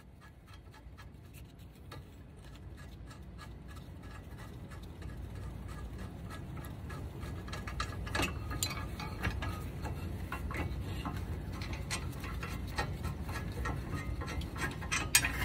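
Small metallic clicks and taps as a loosened front brake caliper bolt on a Honda Civic is turned out by hand and the caliper is worked off the rotor, with a couple of louder knocks about eight seconds in and near the end.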